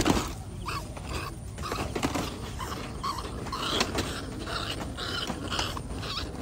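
A trapped rat squealing in short, repeated squeaks.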